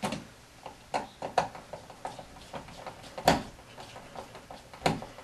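Scattered small clicks and knocks from a dimmer switch being handled and lined up on its mounting slots in the electrical box, with the loudest knock about three seconds in.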